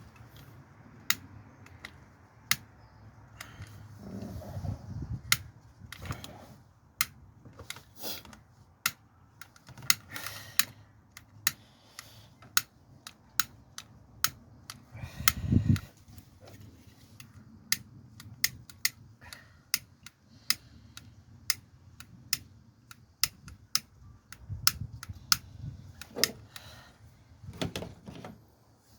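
Irregular sharp clicks and taps from hand tools and wiring being handled, with a few dull knocks a few seconds in, about halfway through and near the end.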